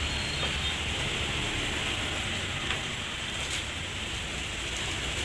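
Steady background noise with a low hum underneath and a couple of faint clicks.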